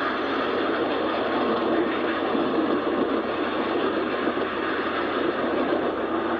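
Passenger cars of a long steam excursion train rolling past close by at speed: a steady, even rush of wheels on rail.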